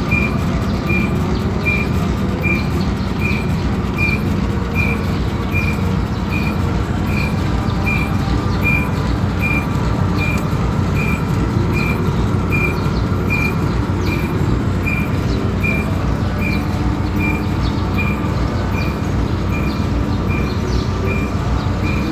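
Metal lathe running while it machines a steel moil point: a steady mechanical drone with a short, high squeak repeating evenly, a little more than once a second.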